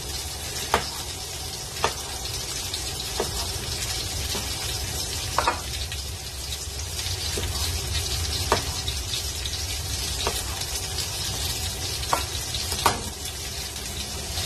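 Pork frying in hot oil in a pan, a steady sizzle. Over it, a knife knocks on a plastic cutting board every second or two as it cuts through a tomato.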